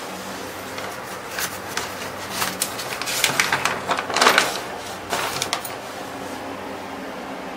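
Newspaper pages rustling and crinkling as a page is turned: a string of short rustles starting about a second in, loudest around the middle, then stopping, over a faint steady hum.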